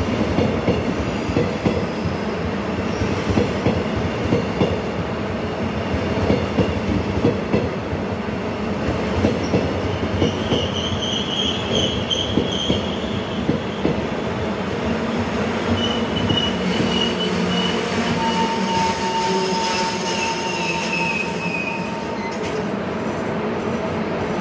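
Passenger train coaches rolling slowly past, wheels clicking over the rail joints, with high-pitched wheel squeals that come and go in the second half, one dipping slightly in pitch near the end.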